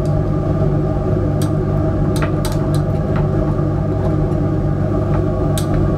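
Steady hum of a laboratory fume hood's exhaust fan, with a glass stirring rod clinking against the side of a glass beaker several times while stirring.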